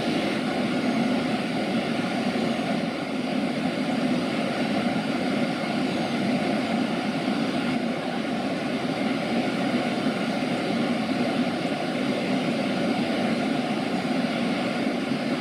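Water rushing steadily over a river weir.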